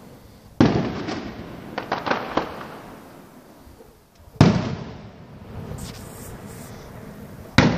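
Aerial firework shells bursting: three loud bangs a few seconds apart, each dying away over a second or so. A cluster of smaller pops follows the first bang.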